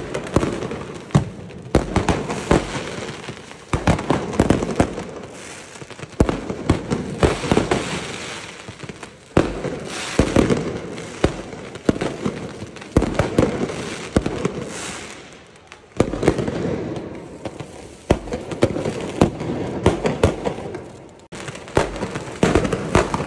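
Fireworks being fired across a street: an irregular run of loud bangs from rockets and firecrackers, several a second at times, each echoing off the surrounding buildings, with crackle between them.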